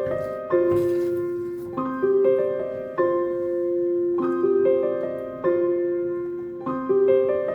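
Background piano music: a slow, gentle piano piece with single notes and chords struck about once a second and left to ring out.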